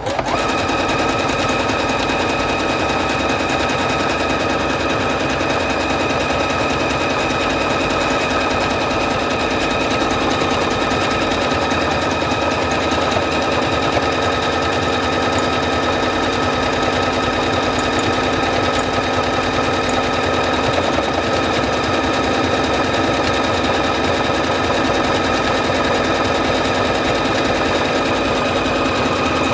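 Singer Featherweight C240 computerized sewing machine sewing a bar tack buttonhole automatically: a fast, steady needle clatter with a motor whine, starting suddenly.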